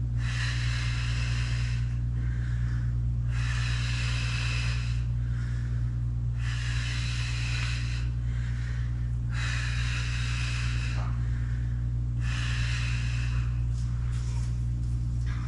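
A woman's heavy, paced breathing during exercise reps: a hissing breath about every three seconds, in time with the inhale-down, exhale-up rhythm of a kneeling leg exercise. A steady low electrical hum lies under it.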